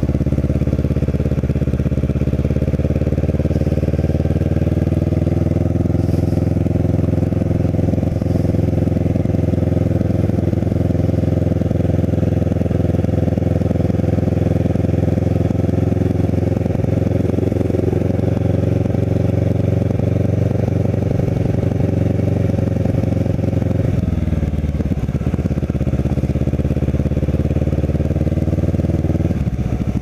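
Kawasaki Ninja 650R's parallel-twin engine running at a steady, light cruise, heard from the rider's seat. Its pitch dips and climbs back about three-quarters of the way through, and the engine eases off near the end as the bike comes up to a junction.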